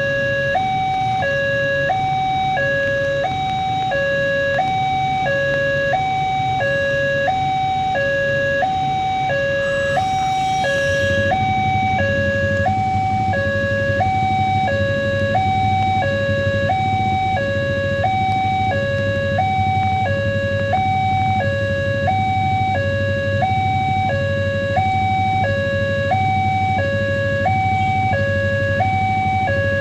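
Railway level-crossing warning alarm from the loudspeaker on the crossing signal post: an electronic two-tone high-low signal, each note held about half a second, repeating steadily. Underneath, a passing coal train runs by, its low rumble growing louder about eleven seconds in.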